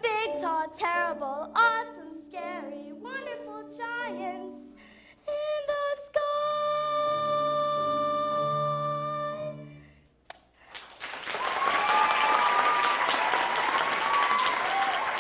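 A young solo singer with instrumental accompaniment sings the closing run of short notes with vibrato, then holds one long note that ends about ten seconds in. After a moment's quiet, the audience bursts into applause with cheering.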